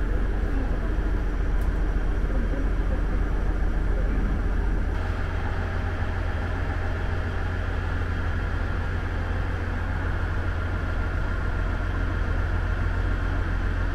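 Diesel engine of a KiHa 110-series railcar idling while the train stands at the platform, heard from inside the carriage as a steady low hum. About five seconds in, the hum settles onto a slightly higher, steadier note.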